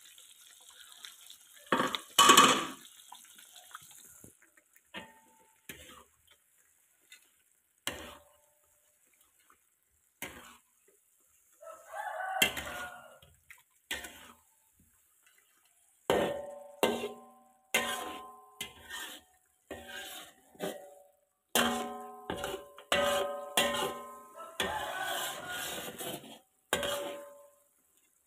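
Metal spatula scraping and knocking against a metal wok while stirring a thick chili sauce with fish. The strikes come in scattered bursts, thick and fast in the last twelve seconds, and many leave the wok ringing with a clear tone. A faint sizzle fades after about four seconds.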